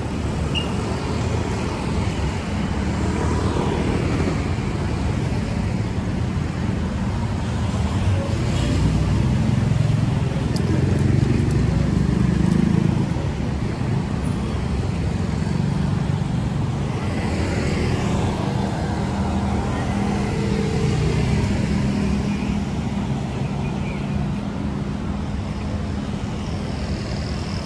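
Road traffic passing: a steady mix of vehicle engines and tyre noise, with one vehicle going by close and loudest about ten to thirteen seconds in.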